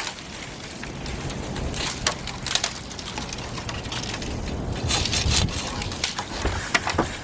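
Tree branches being cut off and breaking, with irregular sharp wooden cracks and snaps over steady wind noise.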